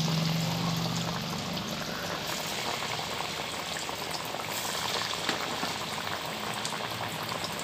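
Chicken pieces coated in crushed cornflakes deep-frying in hot oil, a steady bubbling sizzle with many fine crackles.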